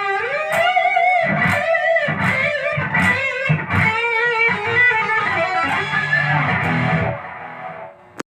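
Fernandes HSS electric guitar with a Floyd Rose tremolo being played: picked notes with pitch glides, ringing out and fading about seven seconds in, then a sharp click just before the end.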